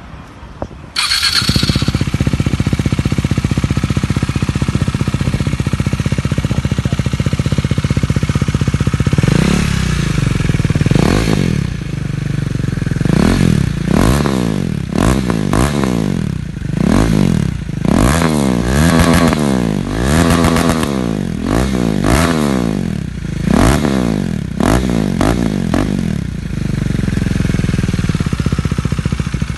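KTM Duke 390's single-cylinder engine, fitted with an aftermarket exhaust, starts about a second in and idles, then is revved in a long series of quick throttle blips before settling back to idle near the end.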